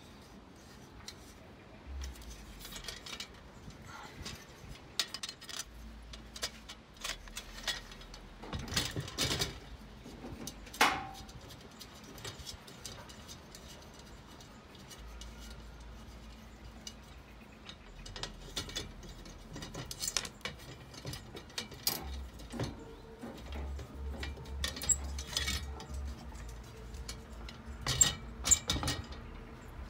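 Glass shade panels and the brass wire frame of a vintage chandelier clinking and knocking as they are handled. There are scattered light clicks throughout, one sharper clink that rings briefly about eleven seconds in, and a few louder knocks near the end.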